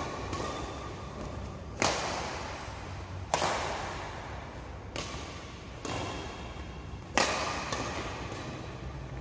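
Badminton rackets hitting a shuttlecock in a rally: about six sharp smacks, a second or two apart, each ringing on in the echo of a large hall.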